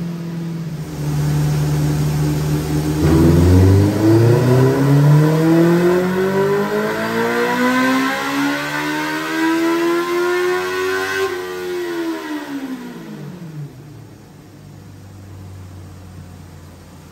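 Honda CB650F's inline-four engine through a full Black Widow exhaust with stubby silencer, running on a roller dyno. It holds a steady speed, then makes a full-throttle power pull, revving up smoothly for about eight seconds. About eleven seconds in the throttle closes and the revs fall away, leaving a quieter steady hum.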